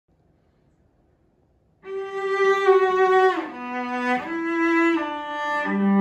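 A Czech cello from about 1920 played with the bow. After nearly two seconds of quiet comes a slow phrase of long, sustained notes, sliding down and then up between them, and ending on a lower note.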